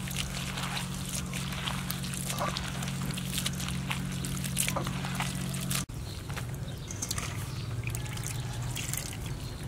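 Hands washing chopped green vegetable strips in a metal bowl of water: quick, irregular wet splashing and squelching over a steady low hum.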